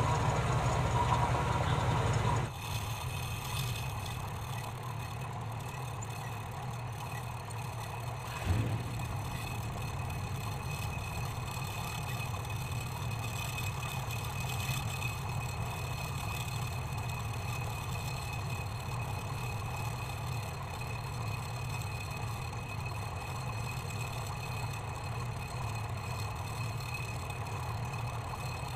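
Homemade brake-disc lathe running steadily, its electric motor and spindle humming with a faint high whine. Louder for the first couple of seconds, with one short knock about eight seconds in.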